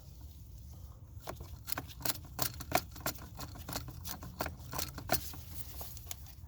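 Irregular sharp clicks and taps of small hard parts being handled, over a steady low hum.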